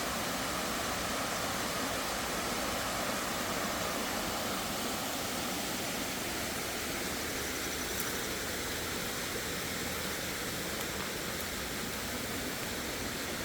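Small creek waterfall running steadily, an even rushing wash of falling water.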